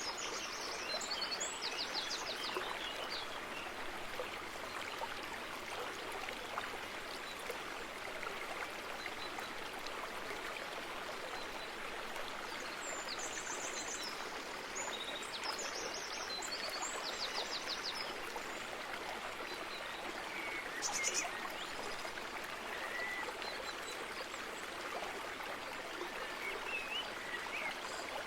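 Running water of a stream, rushing steadily, with small birds calling now and then over it. There are short high trills near the start, a cluster about halfway through, and one about three-quarters of the way in.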